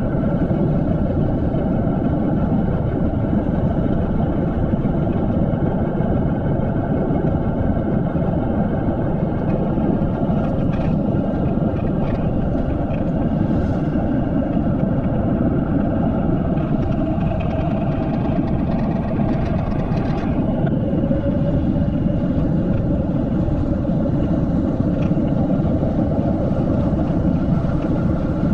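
Wind rushing over a GoPro's microphone as a mountain bike descends at about 35 to 40 km/h: a steady, dull low rumble of air noise.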